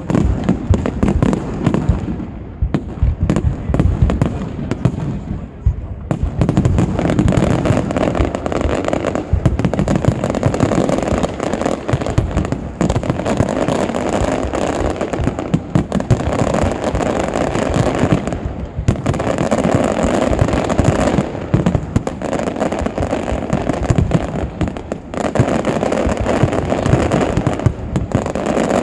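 A dense fireworks barrage: aerial shells and ground-fired mines going off in rapid, overlapping bangs and crackles, thickening into an almost unbroken stream about six seconds in.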